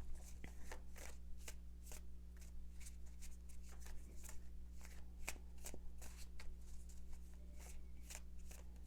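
A deck of tarot cards being shuffled by hand: a run of quick, irregular card riffles and flicks, over a steady low electrical hum.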